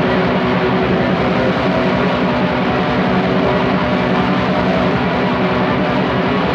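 Raw black metal: a steady, dense wall of heavily distorted guitars over fast drumming, with a muddy, lo-fi sound.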